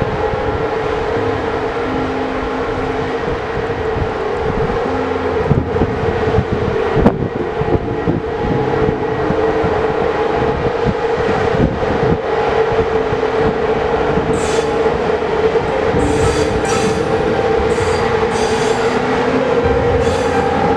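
Class 461 electric locomotive hauling passenger coaches slowly past at close range, with a steady hum and the clatter of wheels over the rails. In the second half, short high-pitched wheel squeals come again and again as the coaches roll by.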